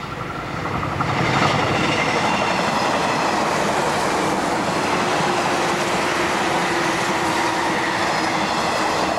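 Tomix N-gauge JNR 583 series EMU model train running past on the layout: its wheels clicking over the rail joints with the motor's hum, growing louder over the first second as it approaches, then steady.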